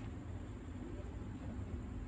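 A steady low hum with faint background noise and no distinct events.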